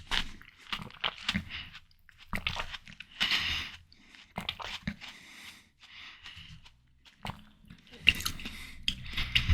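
Close-miked chewing of juicy, crunchy watermelon: irregular wet crunches and squishes, with short pauses, getting louder near the end.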